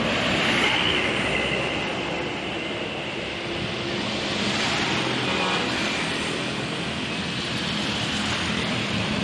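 A large bus running past with steady engine and road noise, with no horn sounding.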